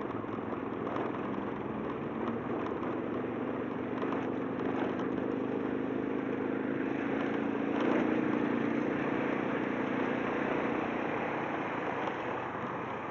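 Small motorbike's engine running steadily while riding through town, mixed with road and wind noise, briefly louder about eight seconds in.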